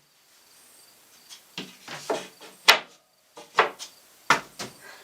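Plywood cabinet doors with wooden latches being opened and shut: a string of sharp clicks and knocks in small uneven groups, the loudest about two and a half seconds in.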